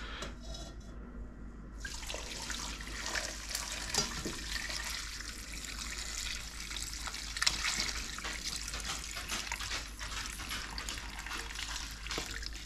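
Beef broth poured from a large enamelled Dutch oven through a wire-mesh strainer into a steel pot: a steady splashing of liquid that starts about two seconds in, with a few louder splashes along the way.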